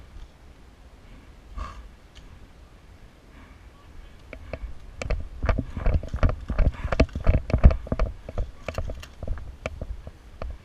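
An irregular run of sharp knocks and clicks with dull thuds, sparse at first and coming thick and fast from about halfway through, then thinning out near the end.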